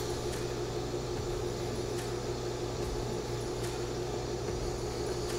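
TIG welder humming steadily while tack-welding the stamped-steel receiver seam of a CETME L rifle, with faint ticks about every second and a half.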